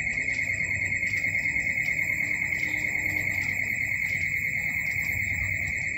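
A steady, high-pitched electronic warning tone, pulsing rapidly without a break.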